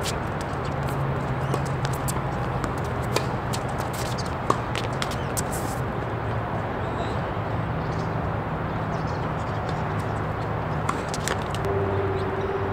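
Tennis court ambience: a steady crowd murmur with scattered sharp knocks, the loudest about four and a half seconds in.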